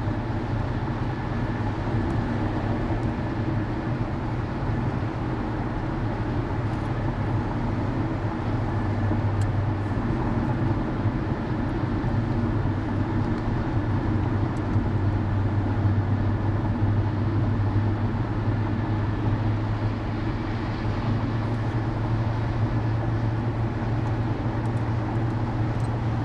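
Steady engine drone and road noise from a vehicle cruising at highway speed, with a constant low hum.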